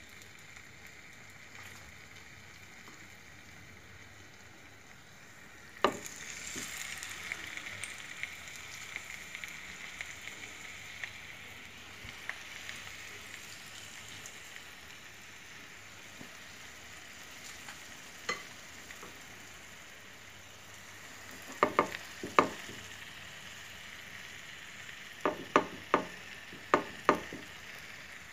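Marinated, besan-coated mutton chops shallow-frying in a little oil in a flat pan: a steady sizzle that gets louder about six seconds in, right after a sharp knock. A few more sharp knocks come in two clusters near the end.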